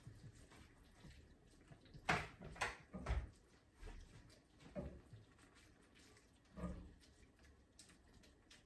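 A utensil knocking and scraping against a skillet while pasta is stirred and tossed in sauce: a handful of scattered knocks and scrapes, the loudest a quick cluster about two to three seconds in, with fainter ones near five and seven seconds.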